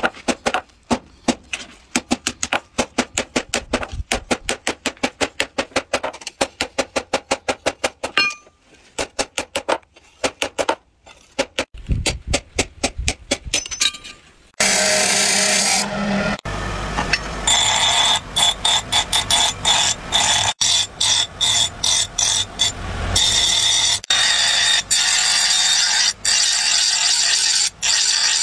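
Hand hammer striking red-hot plow-tooth steel on a block anvil in rapid, regular blows for about the first half. From about halfway, a grinding wheel grinds the forged blade: a steady hiss with a high whine, broken off briefly several times as the blade is lifted from the wheel and pressed back.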